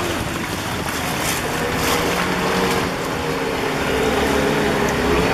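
Outboard motor of a motorized river canoe running steadily under way, with the rush of water and air over the moving boat.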